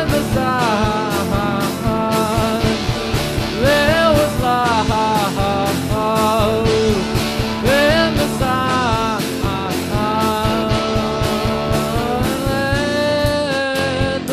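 Rock band playing live: drum kit, electric guitars and bass, with a melody line that slides up into long held notes about every four seconds.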